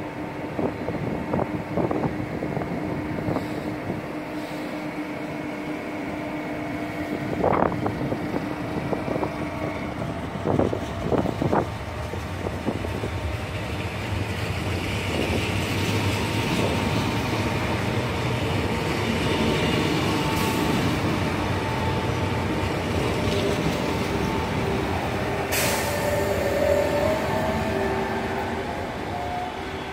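RENFE electric commuter trains running past on the track: a steady rumble of wheels on rails with a hum, and a few sharp clanks early on. The sound grows louder from about halfway, and a rising whine comes in near the end.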